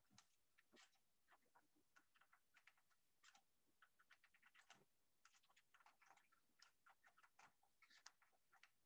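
Near silence, with faint, irregular small clicks and scrapes from a small metal pry tool easing a cable connector off a circuit board.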